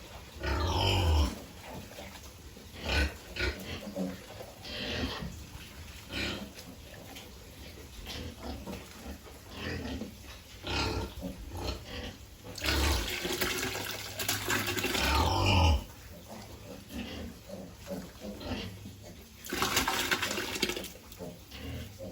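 Piglets grunting and squealing in irregular short calls, with water splashing at times and two longer loud noisy stretches near the middle and towards the end.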